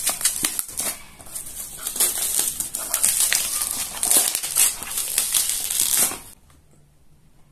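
Packaging being unwrapped and handled by hand: a dense crinkling and crackling with many small clicks, which stops about six seconds in.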